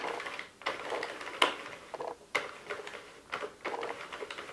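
Plastic Sentro circular knitting machine being cranked, its hooked needles running through the carriage with a light continuous rattle and sharp clicks every half second to second.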